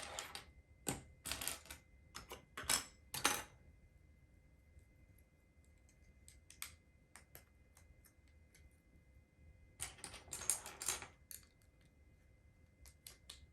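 Small plastic LEGO pieces clicking and rattling as they are handled and pressed together, in clusters near the start and again around ten seconds in, with scattered single clicks between.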